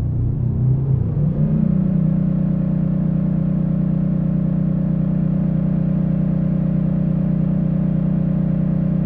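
Moog Mother-32 analog synthesizer playing a loud low buzzing drone. Its pitch glides upward over about the first second and a half as a knob is turned, then holds steady.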